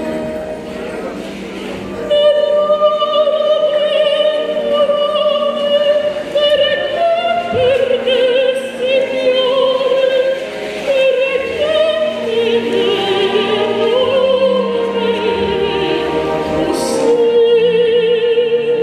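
A woman singing solo into a microphone, amplified through stage loudspeakers, holding long notes with a wide vibrato.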